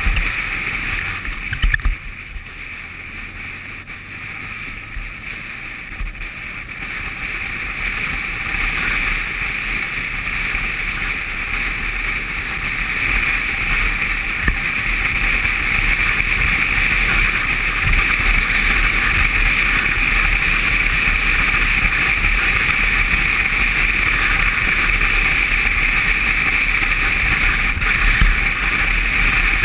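Wind rushing over the microphone of a camera on a moving motorcycle, with the bike's engine and tyre noise under it, growing louder over the first half as it picks up speed on the open road. A few short sharp knocks stand out.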